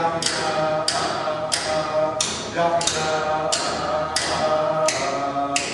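Inupiaq frame drums beaten in a steady, even beat, about three strokes every two seconds, under voices singing a held chant.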